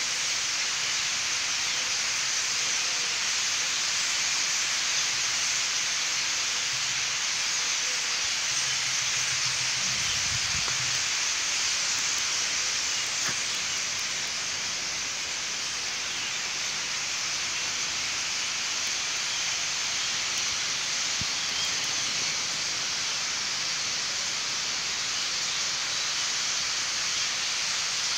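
A vast roost of starlings chattering all at once in the trees, thousands of calls blending into one dense, steady hiss as the flock gathers to leave the roost. A faint low hum sounds briefly about ten seconds in.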